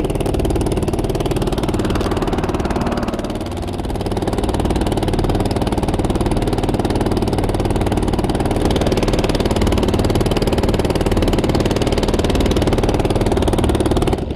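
Small Yamaha-badged single-cylinder petrol engine driving a longtail propeller shaft, running steadily with the boat under way. It is briefly quieter about three and a half seconds in.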